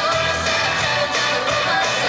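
Background music: a song with a singing voice over a steady band accompaniment.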